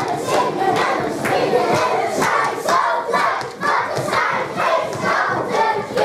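A group of young children singing and shouting together, loud and in a steady rhythm.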